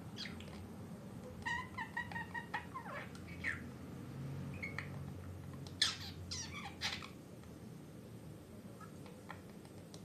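Budgerigar chattering in its cage: a quick run of short warbling calls in the first few seconds, then a few sharp chirps about halfway through, then only the odd faint call.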